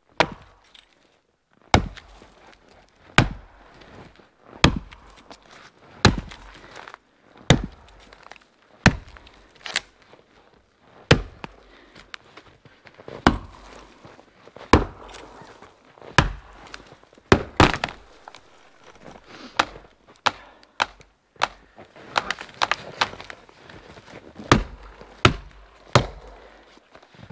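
Axe chopping into a felled green pine trunk: sharp single strikes about every one and a half seconds, coming quicker in the last several seconds.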